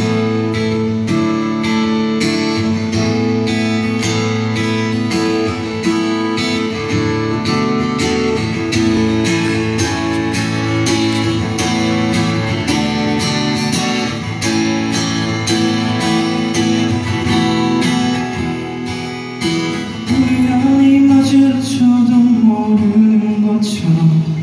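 Steel-string acoustic guitar strummed in a steady, even rhythm as a song's intro. A man's singing voice comes in over it about twenty seconds in.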